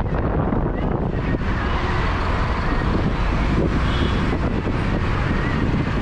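Car driving, heard from inside the cabin: steady engine and road noise, with some wind buffeting the microphone.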